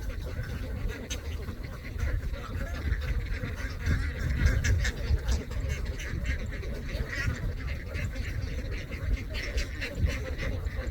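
Large flock of ducks quacking, many calls overlapping continuously, over a steady low rumble.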